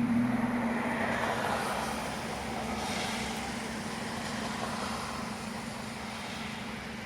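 Honda Civic FN1's 1.8-litre four-cylinder petrol engine running through a Ragazzon aftermarket exhaust, holding a steady engine speed with a constant low tone.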